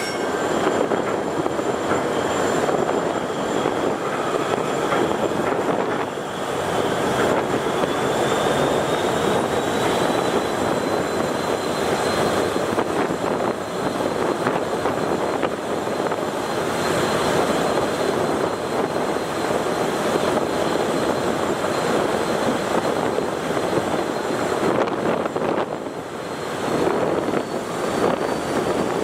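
Steady rushing noise of wind and rough, choppy river water, with the drone of a large multi-deck passenger launch's engines as it crosses.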